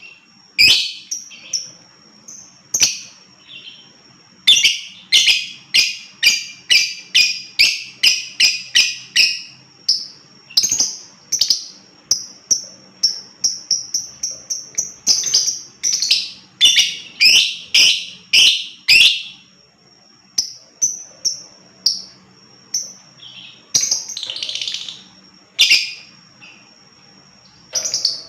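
Lovebird chirping in runs of sharp, shrill notes, about two a second, broken by short pauses.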